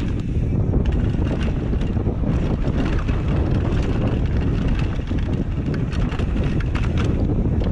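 Wind buffeting the microphone of a camera on a Commencal Supreme downhill mountain bike riding fast down a dirt trail. Under the steady rumble come tyre noise and frequent short clicks and rattles as the bike jolts over the ground.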